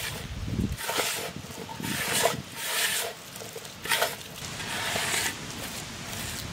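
Hand mixing a spice marinade of chilli powder, turmeric, masala, salt and ginger-garlic paste in a large metal bowl: fingers rubbing and scraping the paste against the metal in irregular strokes.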